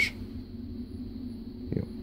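Steady low background hum, with one short, soft sound near the end.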